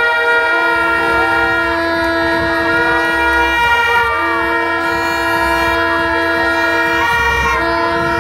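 Several blown horns sounding long, steady held notes at different pitches together. They break off briefly about every three and a half seconds, then start again.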